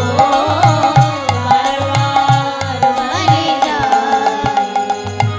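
Instrumental kirtan music: a hand drum beats a steady rhythm under sharp cymbal-like clicks, with a wavering melody line over held notes.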